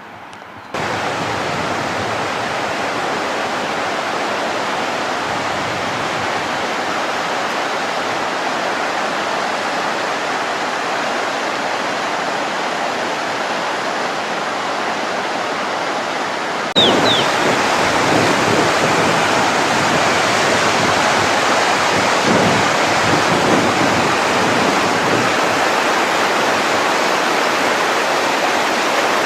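Floodwater rushing in a steady, even noise that jumps louder at an abrupt cut about 17 seconds in.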